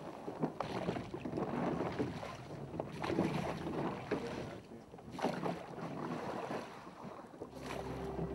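Sea water washing and slapping against a sailing yacht's hull as it rolls in the swell, surging every couple of seconds, with wind buffeting the microphone.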